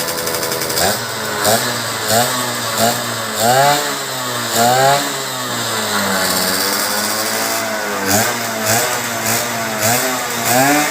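Tuned 130cc drag-bike motorcycle engine being revved in quick blips, its pitch rising and falling about a dozen times. For a couple of seconds in the middle it settles to a low, steady idle.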